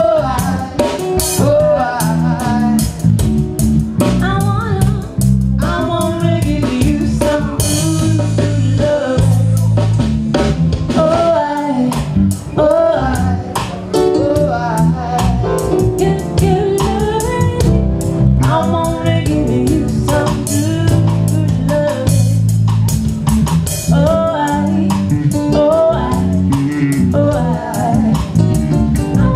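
Live reggae band playing: a woman singing over guitar and drum kit.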